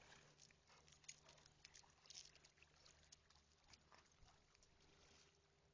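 Near silence: faint outdoor background with a low hum and scattered small clicks and ticks.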